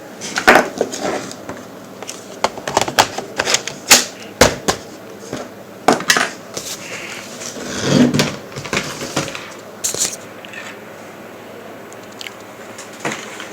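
Irregular clicks, taps and knocks of a Lenovo ThinkPad W510 laptop's parts being handled and fitted together during reassembly.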